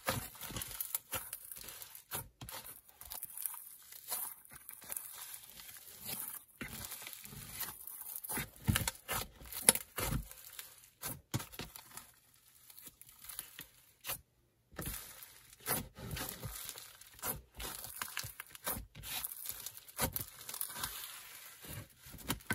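Snow fizz slime mixed with clay being squeezed, kneaded and stretched by hand, giving dense, irregular crunching and sizzling crackles.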